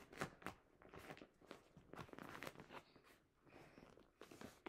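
Clear plastic packaging bag crinkling and crackling as it is grabbed and dragged across a couch, a fast, irregular run of crackles.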